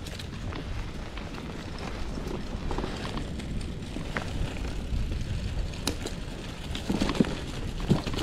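Trek Marlin 5 mountain bike rolling over rough ground: a steady low rumble with scattered small clicks and rattles, and a few louder knocks near the end.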